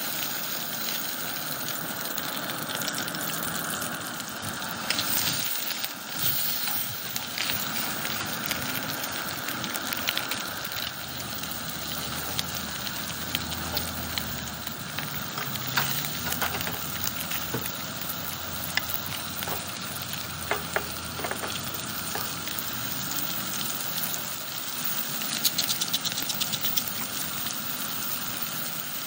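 Whole trout frying in plant-based butter and grapeseed oil in a cast iron skillet: a steady sizzle with scattered pops and crackles, which grow busier near the end.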